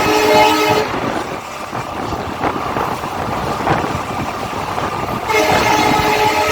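WDG4 diesel locomotive's horn honking several tones at once, cutting off about a second in. The rumble of the train running on the rails fills the gap, and the horn sounds again about a second before the end.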